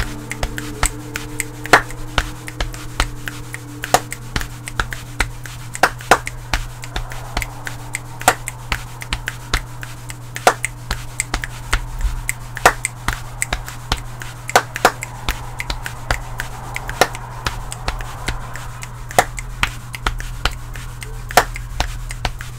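Body percussion in four layered parts: chest pats, claps on the fourth beat with a double clap, hands rubbing on the body, and finger clicks alternating a lower and a higher pitch. Together they make a steady, repeating rhythm of sharp strikes over a soft brushing sound.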